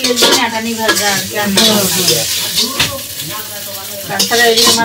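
Metal spatula stirring and scraping pieces of taki fish frying in oil in a steel karai, with the oil sizzling and the spatula clinking on the pan.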